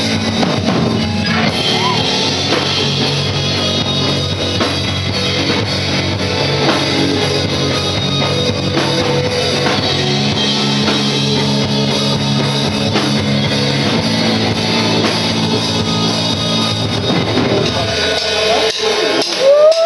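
Heavy rock band playing live: distorted electric guitars over a drum kit, with a short rising note near the end.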